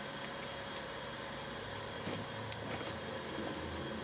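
Steady low background hum of the workbench room, with a few faint light clicks.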